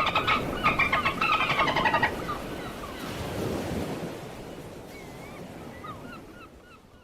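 Sea waves with a flurry of birds calling over them for the first couple of seconds; the wave sound then fades out.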